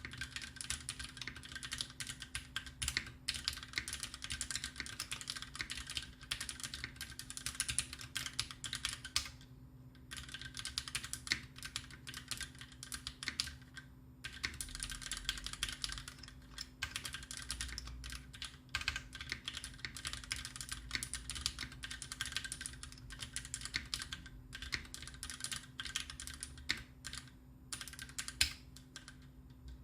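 Steady fast typing on a custom Taichi TKL mechanical keyboard fitted with lubed Greetech Black linear switches and GMK Cherry-profile keycaps: a dense run of keystroke clacks that stops briefly about nine seconds in and again about fourteen seconds in.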